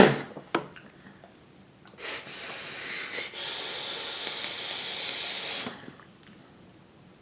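Someone taking a drag on a vape and breathing out the vapour. About two seconds in, a steady airy hiss begins, with a slight break partway, lasts about three and a half seconds, then stops sharply.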